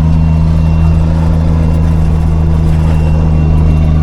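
A 5-ton military truck's engine running at a steady speed while the truck is under way: a loud, even, low drone that holds one pitch.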